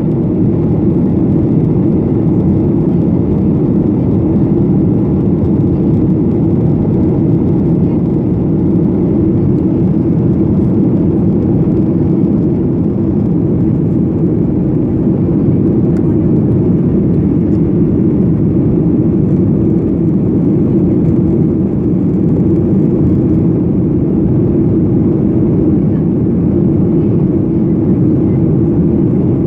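Steady low rumble of an airliner's engines and airflow, even and unbroken throughout.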